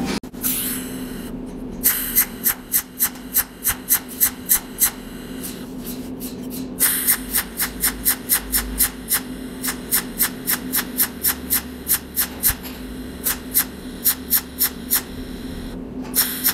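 Cold welding machine firing weld spots through a tungsten electrode onto filler wire, each pulse a sharp snap, about three a second in runs of several seconds with short pauses, over a steady low hum.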